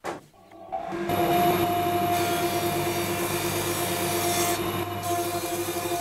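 Thickness planer running and cutting ash boards, a steady whine over the hiss of the cutterhead. It comes in about a second in, and the cutting hiss drops briefly near the end as one board clears the cutter and the next goes in.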